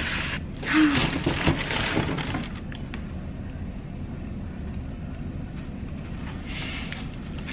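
Cardboard shoebox being opened and tissue paper rustling as a sneaker is lifted out, then a low steady hum with another brief rustle of paper near the end.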